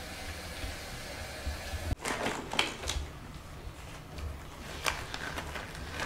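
Low kitchen room noise with a few light knocks and clicks from about two seconds in.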